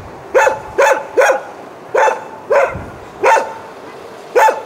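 A mixed-breed stray dog barking about seven times in short, sharp barks at irregular intervals. It is a guard bark at strangers: the mother dog is defending her puppies.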